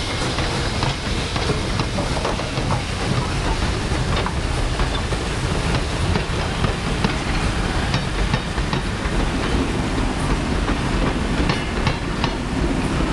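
Triple-headed steam train of locomotives 2705, 3016 and 3526 with Pullman carriages passing close by, a steady heavy rumble of engines and wheels on the track. Wheels click over rail joints, the clicks coming more often near the end as the carriages go by.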